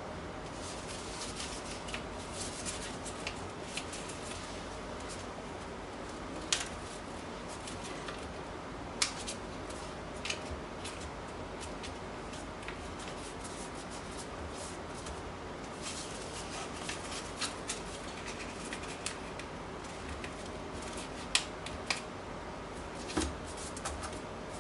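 A sheet of paper being folded and creased by hand: irregular crackles and rustles as the folds are pressed flat, with a few sharper snaps, over a steady faint hiss.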